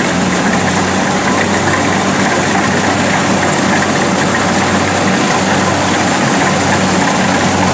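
Kubota DC70 rice combine harvester running steadily as it cuts and threshes rice: a loud, unbroken machine drone with a constant low hum.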